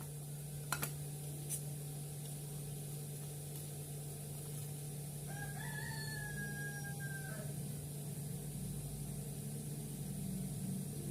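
A rooster crows once, a single drawn-out call of about two seconds in the middle, over a steady low hum. Two sharp clicks come about a second in.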